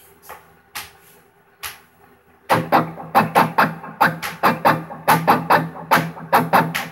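Electric guitar playing a heavy, metal-style syncopated rhythm exercise: a few faint picked clicks, then from about two and a half seconds in loud, short chugged chords in clusters of two, three and one notes with rests between them, following a pattern over nine sixteenth notes.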